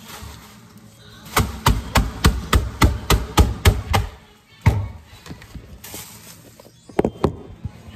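A quick run of about ten knocks on a countertop, about three a second, then a single thud and two more near the end. This is the sound of Hot Cheetos and Takis being pounded inside a plastic bag to crush them into a coating.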